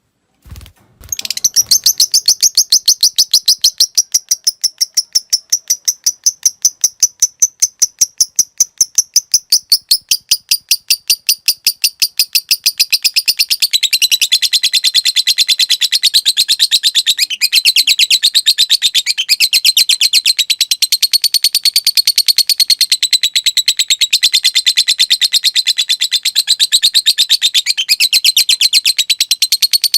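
Lovebird giving a long 'ngekek': a fast, unbroken chattering trill of sharp, high notes that starts about a second in after a couple of clicks. About halfway through the notes drop a little in pitch and run more closely together.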